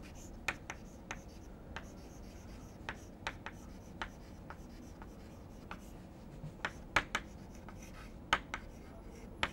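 Chalk writing on a chalkboard: irregular short taps and scratches as the letters are formed, with the loudest taps about seven seconds in.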